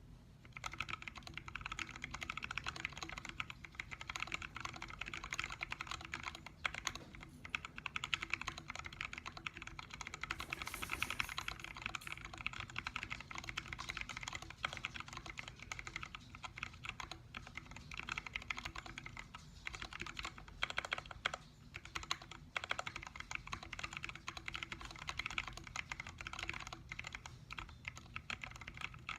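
Continuous typing on a Planck mechanical keyboard with lubed 78 g Zealio tactile switches, a stainless steel plate, an aluminium case and XDA Canvas keycaps: a dense, steady run of keystrokes.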